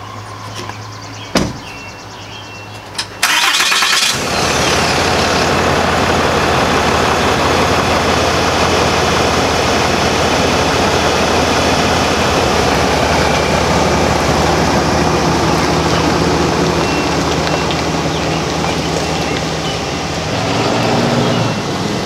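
A truck door shuts about a second in. About three seconds in, the stock 6.7L Cummins inline-six turbo diesel cranks and fires, then settles into a steady idle.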